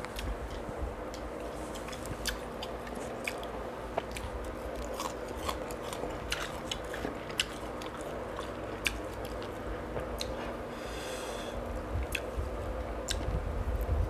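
Close-up mouth sounds of a person eating buttered mussels with his hands: steady chewing with many sharp wet clicks and smacks, and a short hiss about eleven seconds in.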